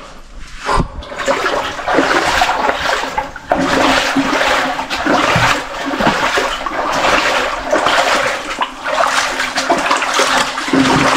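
Shallow water splashing in a narrow stone-lined underground water channel as feet wade through it, the splashes coming about once or twice a second over the rush of the water.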